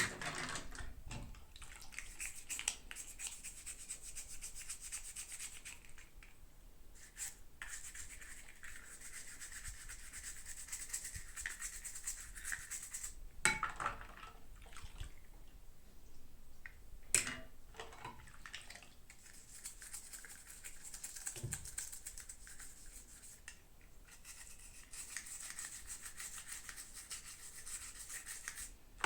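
Scratchy rubbing and rustling of toy packaging being handled and opened, in long stretches with short pauses and a few sharp clicks.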